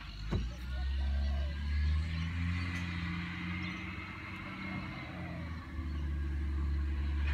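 Garbage truck's diesel engine running, a low steady rumble with a faint whine above it.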